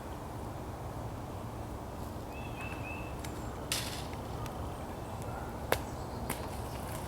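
Outdoor ambience with a steady low rumble. Three short high chirps come about two and a half seconds in, a brief rush of noise near four seconds, and a single sharp knock near six seconds.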